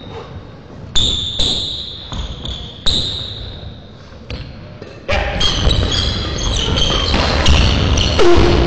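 Badminton in a sports hall: sharp racket-on-shuttlecock hits and high squeaks of court shoes on the floor. About five seconds in, a louder steady noise sets in, with more hits and squeaks over it.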